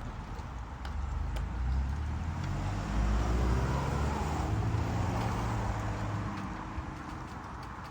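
A car driving past: its engine and tyre noise grow louder to a peak midway, then fade away.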